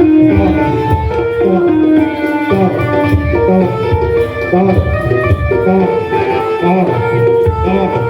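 Jaranan music from a Javanese gamelan-style ensemble: hand drums beat a steady rhythm under a melody of held pitched notes.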